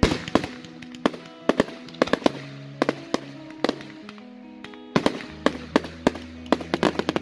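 Fireworks bursting in quick succession, sharp bangs and crackles a few times a second that come thicker in the second half. Music with long held notes plays underneath.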